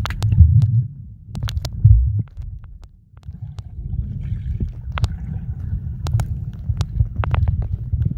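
Muffled underwater sound picked up by a submerged camera: a low churning rumble of moving water with scattered sharp clicks and ticks. The rumble swells twice early on and dips briefly a few seconds in.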